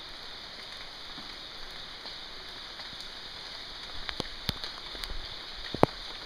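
Steady rain falling on a wet street, an even hiss, with a handful of sharp drip-like taps in the second half, the loudest just before the end.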